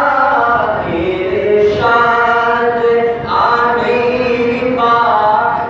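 A man singing a naat, an Islamic devotional praise song, unaccompanied into a microphone. He holds long notes in several phrases separated by short breaks.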